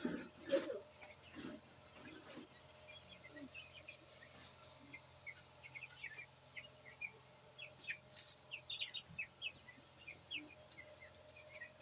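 Steady high cricket-like insect drone, with many short chirps from poultry birds scattered over it, growing busier after the middle. A few knocks come in the first second.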